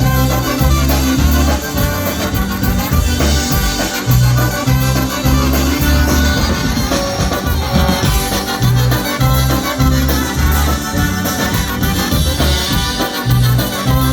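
Live polka band playing the instrumental introduction of a song, with a steady repeating bass line under the band.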